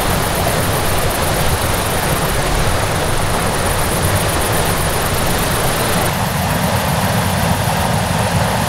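Heavy rain and wind: a loud, steady rush of noise with a deep rumble underneath, its tone shifting slightly about six seconds in.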